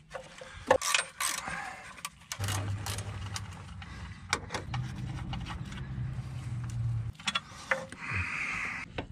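Socket ratchet clicking as 13 mm bolts holding the transmission to the engine are turned out, with scattered sharp metal clicks and taps. A low steady hum runs for several seconds through the middle.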